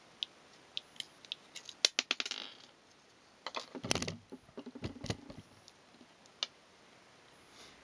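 Metal motorcycle disc lock clicking and rattling as it is handled: a scattering of sharp metallic clicks, a quick jingling cluster about two seconds in, then denser clunks and rattles around four to five seconds, and one last click.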